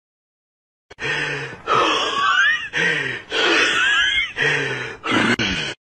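A person breathing hard and loud through a small gap in bedcovers, several heavy in-and-out gasps with a wheezy whistle and some low voiced groaning. It starts about a second in and cuts off abruptly near the end.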